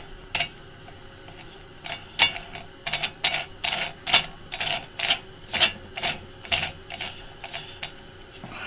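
Ratchet wrench clicking in short irregular runs, about two a second, as the nut on a chrome air cleaner cover is tightened down.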